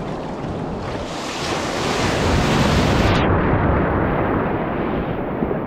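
Ocean surf breaking over a kayak, a loud rush of water with wind on the microphone; the rush swells about a second in and turns abruptly muffled a little after three seconds.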